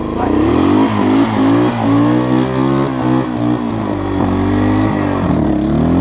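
ATV engine revving, its pitch rising and falling several times as it is worked through deep snow.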